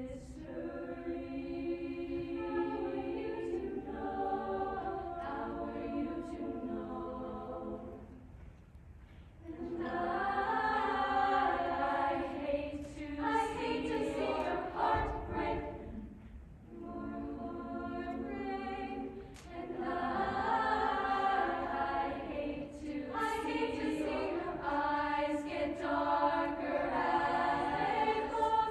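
Show choir singing sustained chords in harmony, in phrases broken by short pauses.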